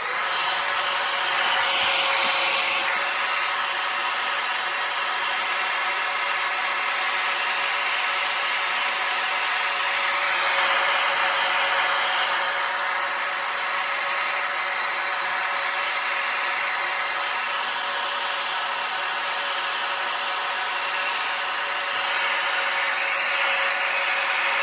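Handheld hair dryer switched on and blowing steadily, a constant rush of air with a faint steady whine in it.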